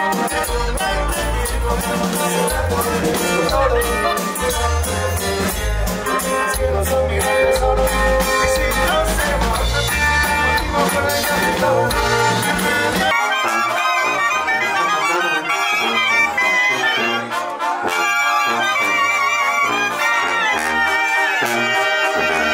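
Loud live band music with a heavy bass beat. About thirteen seconds in it cuts abruptly to music without the deep bass, carried by wavering higher melody lines.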